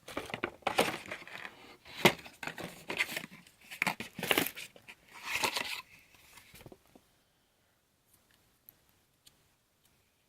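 Plastic packaging being torn open and crinkled by hand, in rustling bursts that stop about seven seconds in, followed by a few faint clicks.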